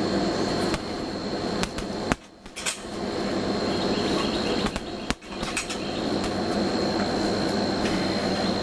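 Boxing gloves punching an Everlast heavy bag: scattered, irregular sharp hits over a steady background noise.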